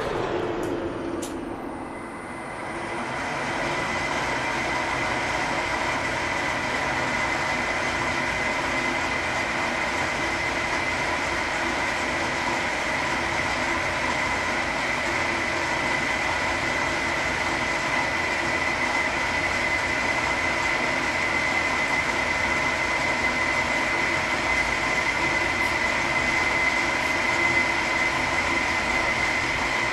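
Schaublin SV-51 milling machine running at 400 rpm on slow power feed, a large-radius insert face mill taking a light 0.1 mm cut: a steady mechanical whine. A falling tone and a brief dip in loudness come in the first two seconds.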